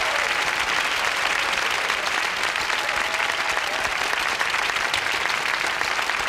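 Comedy-club audience applauding steadily: a dense wash of many hands clapping at an even level.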